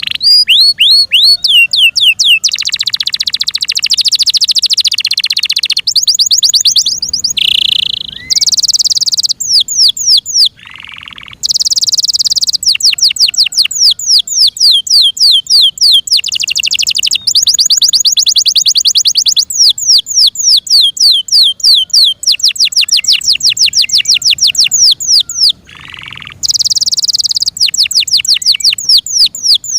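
F1 Yorkshire canary singing loudly: a continuous song of fast trills and rolls of rapidly repeated high notes, switching to a new phrase every second or two with only brief breaks.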